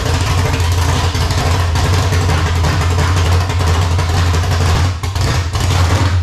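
Small-block Chevy 406 V8 in a 1974 GTO idling, a loud, steady low rumble, as the engine is warmed up.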